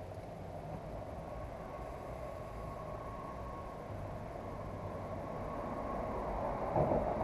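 Steady low rumble and hiss of road traffic on the bridge overhead, growing slowly louder toward the end with a brief louder swell just before the end.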